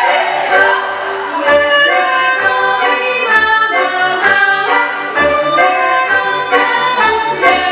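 Lively Polish folk dance music for a Lublin dance suite: a band tune carried by accordion and fiddle over a regular bass beat.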